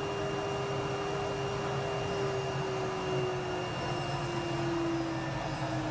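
CNC router spindle running steadily with a held whine as its cutter machines a slot in MDF. The pitch sinks slightly in the second half.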